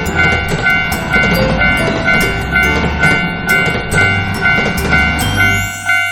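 Japanese level-crossing warning bell ringing in an even two-tone clang, about two strokes a second, over background music with a steady bass beat. A rising sweep comes in near the end.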